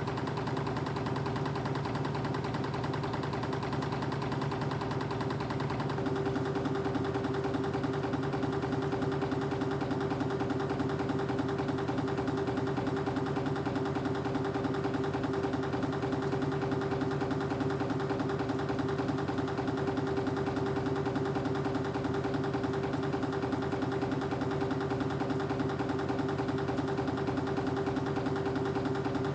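Spring-wire machinery, a reciprocating wire uncoiler feeding a spring machine, running steadily with a hum and a fast, even rattle. About six seconds in, the running changes: a mid-pitched hum comes up stronger and the sound gets slightly louder.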